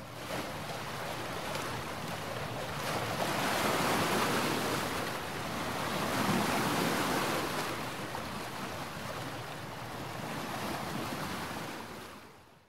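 Sea surf: waves breaking and washing in, with wind noise, swelling louder twice in the middle and fading out at the end.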